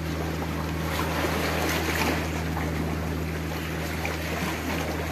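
Sea water washing and lapping against shoreline rocks, under a steady low drone of a boat engine running offshore.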